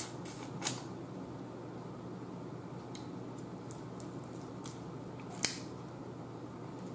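Mukbang eating sounds: scattered sharp clicks and small wet smacks as a person chews and peels boiled shellfish by hand, over a steady low hum.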